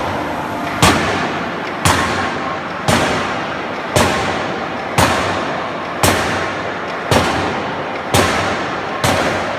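Forging hammer striking at an even pace of about one blow a second, nine sharp metallic bangs in all, each dying away briefly, over steady machinery noise.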